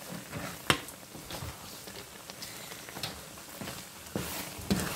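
Wooden spoon stirring thick, creamy macaroni and ground beef in a pan: soft squelching and scraping, with a few light knocks of the spoon against the pan.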